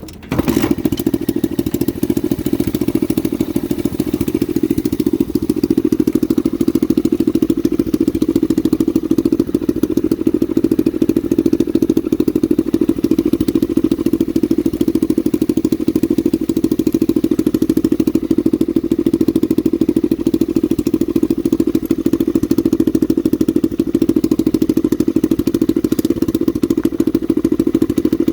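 Honda NSF100 mini bike's single-cylinder four-stroke engine starting and then idling steadily with a rapid, even beat, a little louder after about four seconds.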